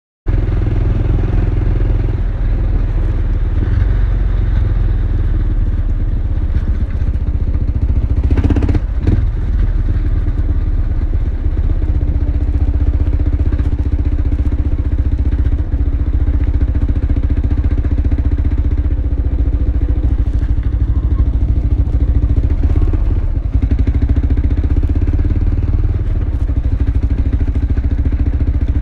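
Yamaha XT500 single-cylinder engine running steadily while riding, heard from the bike itself with heavy low rumble and road noise. A brief louder burst of noise comes about eight and a half seconds in.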